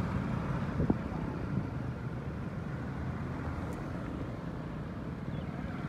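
Steady low rumble of a two-wheeler in motion, heard from the rider's seat: engine and road noise, with a brief sharp sound about a second in.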